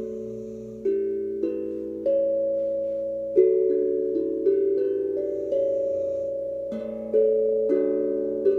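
Steel tongue drum played slowly, one struck note at a time, about ten in all. Each note rings on and overlaps the next in a soft, sustained wash of tones.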